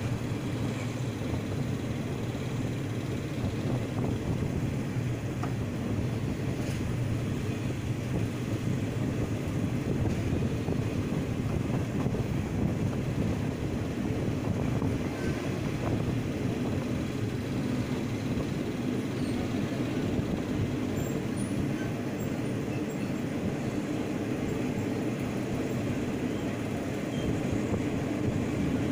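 Passenger train running along the track, heard from a carriage window: a steady rumble of the wheels on the rails.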